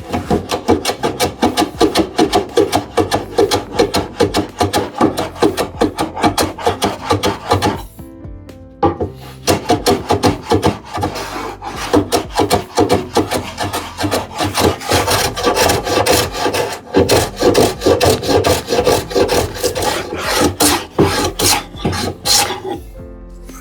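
A hand tool working wood in rapid back-and-forth strokes, several a second. The strokes stop briefly about eight seconds in, then resume.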